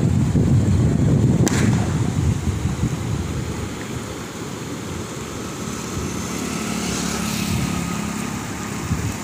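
Swollen river in flood, its muddy water rushing steadily, with wind buffeting the microphone in a low rumble that eases after about three seconds.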